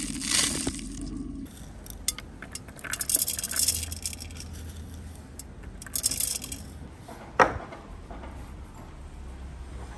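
Food being handled in short crisp bursts, with seasoning crumbled between fingers at the start. One sharp knock on wood comes about seven and a half seconds in.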